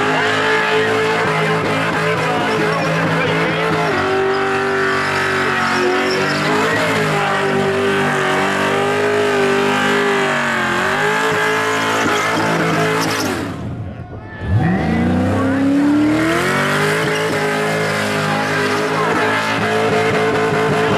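V8 car engine held at high revs during a burnout, its revs wavering up and down, with tyre squeal under it. About thirteen seconds in, the revs drop away almost to idle, then climb back quickly and are held high again.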